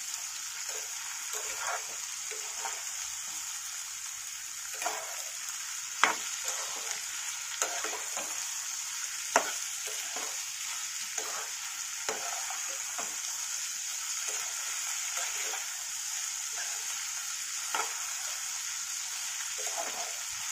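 Chopped vegetables (cauliflower, tondli, potato and peas) sizzling in hot oil and ghee as they are stirred in a pan, the spatula scraping and knocking against the pan now and then. Two louder knocks come about six and nine seconds in.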